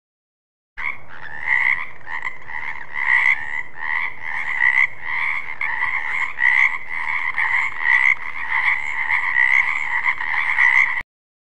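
Frog croaking: a rapid run of repeated calls with no pause. It starts about a second in and cuts off suddenly near the end.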